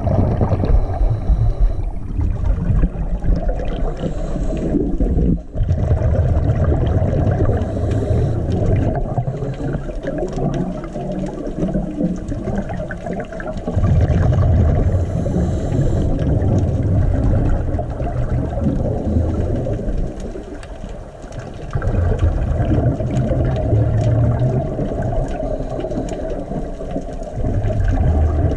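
Muffled underwater noise picked up by a camera in its housing: a low rumbling gurgle that swells and eases every few seconds, with faint ticks.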